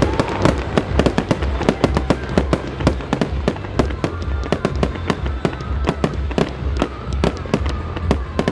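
Aerial fireworks bursting in a rapid string of sharp pops and crackles, several a second.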